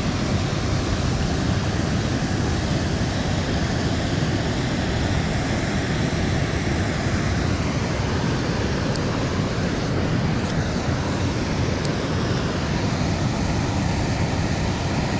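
Steady rush of river water pouring over a low dam spillway, with a few faint ticks partway through.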